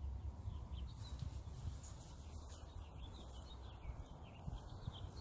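Small birds chirping, with short high calls scattered throughout, over a low, unsteady rumble of wind on the microphone.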